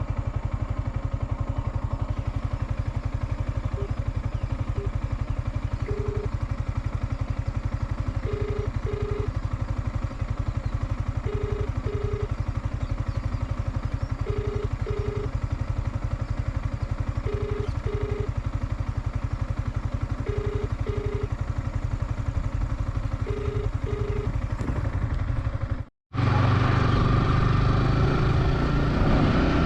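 Motorcycle, likely a Yamaha R15 V4, running steadily while riding, with a constant rumble of engine and wind. A pair of short beeps repeats about every three seconds. The sound cuts out briefly near the end, then comes back louder.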